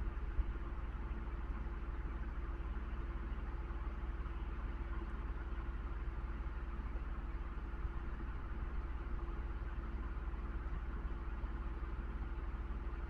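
A steady mechanical hum: an unchanging low drone with a steady mid tone above it.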